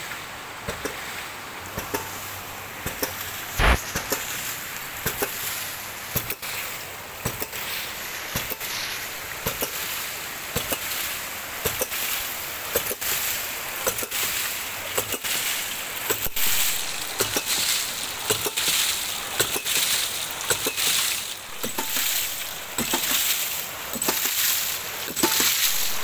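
A 4-inch drive hydraulic ram pump running: its waste valve clacks shut again and again, roughly once a second, over the rush and splash of water spilling out of the valve. Each clack is the water-hammer stroke that drives water up the delivery pipe, with the pump working at about 52 psi. One knock about four seconds in is much louder than the rest.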